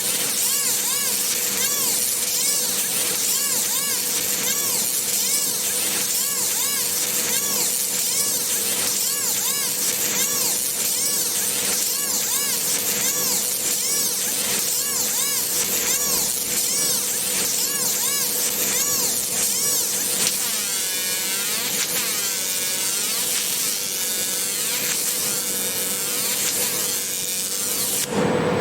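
A 300-watt pulsed laser cleaner ablating weld silicates off metal: a steady high hiss whose tone sweeps up and down in a regular repeating pattern, over a steady hum.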